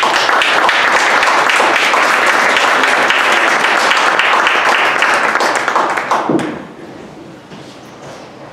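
A small seated audience applauding, many hands clapping together. It starts at once, holds for about six seconds, then dies away.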